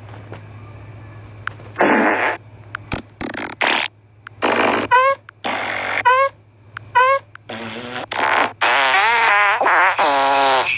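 Fart sounds, one after another: about six short airy ones starting about two seconds in, with a few quick rising squeaks between them, then a long fart whose pitch wobbles up and down near the end.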